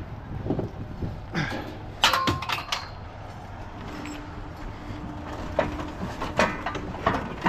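Scattered metal clanks and knocks from scrap being handled and unloaded. The loudest is a quick cluster about two seconds in, one strike ringing briefly.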